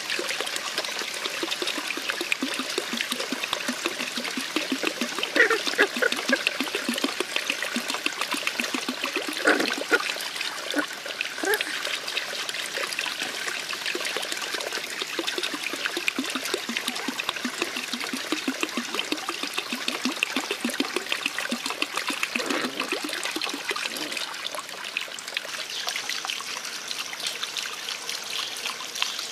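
Puppies eating wet cooked rice from a wooden trough: a busy, irregular stream of wet lapping and chewing sounds.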